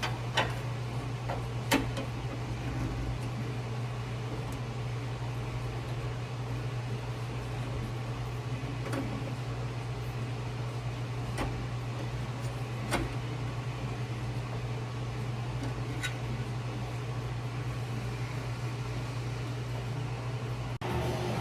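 Steady low mechanical hum with a few isolated sharp taps at irregular intervals; the hum breaks off briefly near the end.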